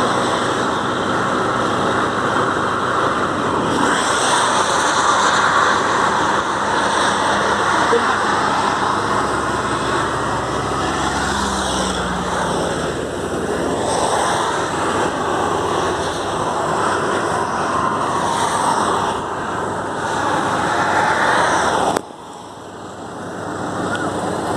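A van's engine running steadily with the hood open, a dense mechanical noise that drops away sharply near the end.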